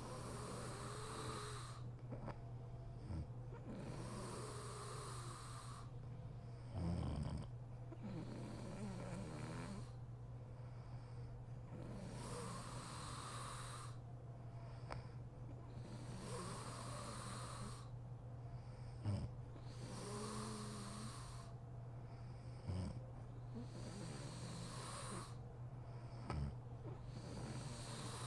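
A sleeping woman snoring, breathing in a slow, even rhythm of roughly one breath every three to four seconds, with a few short low snorts in between.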